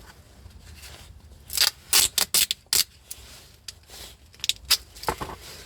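Metal hand tools and loose flywheel bolts clinking and scraping: a quick run of sharp clicks about a second and a half in, then a few more near the end.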